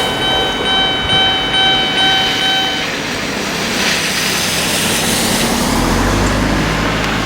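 Japanese railway level crossing's electronic warning bell ringing at about two strokes a second, over the noise of a passing train, and stopping about three seconds in. The bell falling silent marks the train having cleared the crossing. A low rumble comes in near the end.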